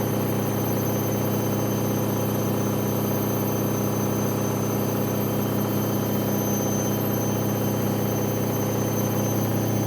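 Washing machine on its spin cycle: a steady motor-and-drum hum with a thin high whine over it, holding an even speed.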